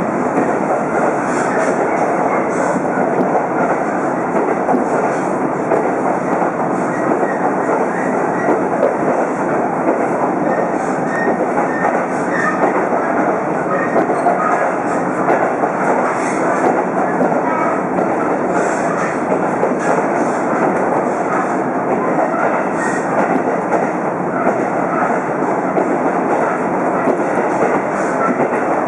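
Steady running noise of a diesel train heard from inside the passenger cabin: wheels rolling on the rails at line speed, with faint clicks over the track.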